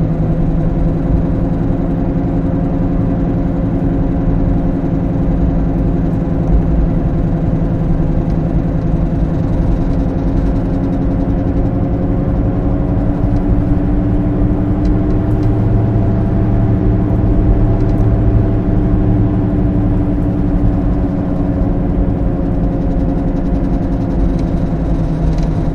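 Car driving with a worn wheel bearing, a steady drone whose pitch and loudness rise about halfway through and then ease off again as the road speed changes.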